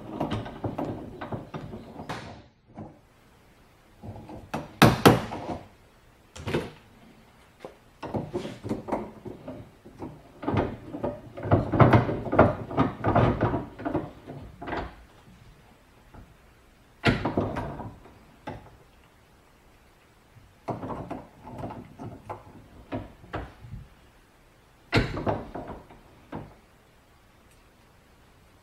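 Irregular knocks, clicks and rattles of a battery master switch being worked on with hand tools, its parts tapped back into place and handled, with a few sharper single strikes spread through.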